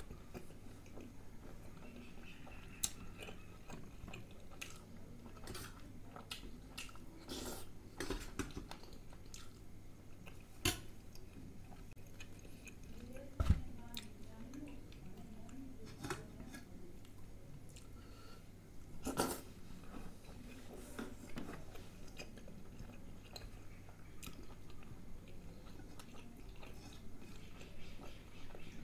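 A person chewing food close to the microphone, with scattered sharp clicks and knocks against steel bowls and a steel plate. The loudest is a low thump about halfway through.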